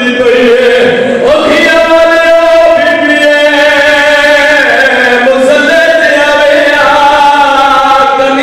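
A male zakir chanting a majlis recitation in long, held melodic notes that step up and down in pitch.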